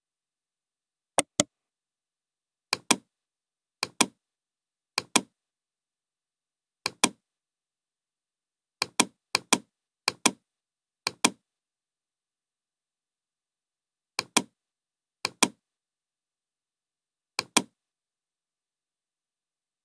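Computer mouse button clicks, each a quick press-and-release pair of sharp clicks. About a dozen come at irregular intervals, with dead silence between them.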